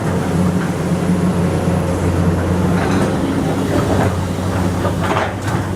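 Komatsu PC200 hydraulic excavator working, its diesel engine a steady drone, with intermittent knocks and rattles from the machine. The rattles are loudest about five seconds in.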